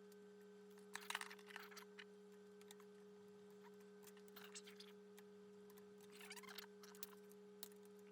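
Near silence: a faint steady hum with a few soft clicks and rustles.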